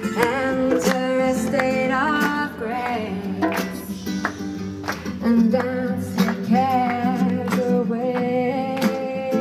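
Live acoustic band music: a woman sings a wavering melody over strummed acoustic guitars, with hand drums keeping a steady beat.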